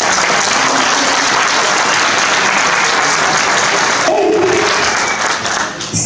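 Audience applauding steadily after a stage performance; the clapping thins about four seconds in.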